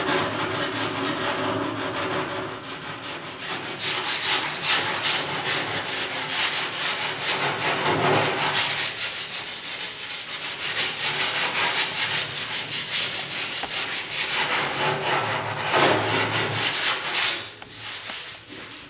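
A sanding block rubbed back and forth over cured Bondo body filler on a steel car fender, in quick, continuous scraping strokes that stop near the end. The filler is being block-sanded flat and scuffed so the next coat of filler will grip.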